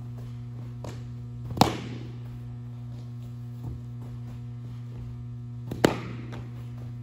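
Two sharp smacks of a baseball, about four seconds apart, over a steady low hum, with faint footfalls on turf between them.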